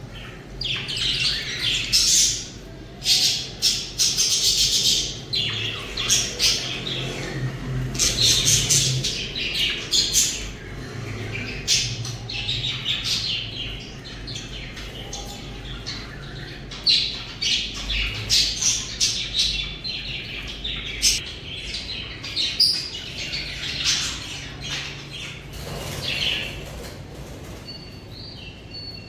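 Budgerigars chirping and chattering in fast bursts of high, scratchy calls, several birds at once, with short lulls in between.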